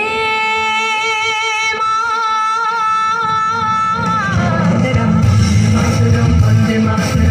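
Hindi song with singing: a voice slides up into one long held note with slight vibrato lasting about four seconds, then the full band comes in with a steady beat.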